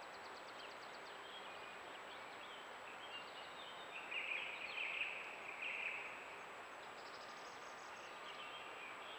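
Birds calling and trilling over the steady hiss of a trail camera's microphone, with a louder, rough sound lasting about two seconds in the middle.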